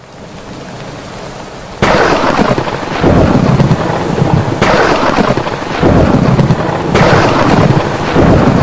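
A steady hiss of rain, then from about two seconds in loud thunder rumbling, swelling again every second or so.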